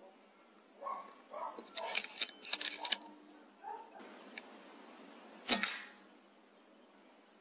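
A cluster of sharp clicks and rattles from about one to three seconds in, then a single sharp crack of a .177 PCP air rifle (Air Arms S510 Ultimate Sporter) being fired about five and a half seconds in.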